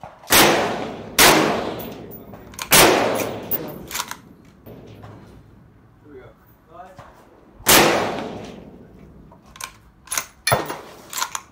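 Four loud rifle shots, each followed by a long echoing decay; the first two come less than a second apart, so neighbouring rifles on the firing line mix with the .223 Savage AXIS II XP bolt-action's shots. Near the end, a quick run of sharp metallic clicks as the bolt is worked.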